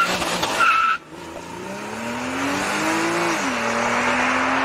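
Porsche Cayman S (981) flat-six engine under hard driving: two short tyre squeals in the first second, then the engine note climbs steadily under acceleration, drops at an upshift about three and a half seconds in and starts rising again.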